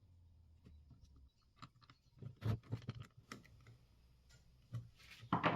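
Scattered small clicks and light knocks of electric fan parts being handled and fitted together during reassembly, with a cluster about two and a half seconds in and more near the end.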